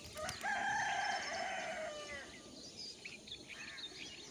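A rooster crowing once: one long call of about two seconds that falls away at its end. Small birds chirp after it.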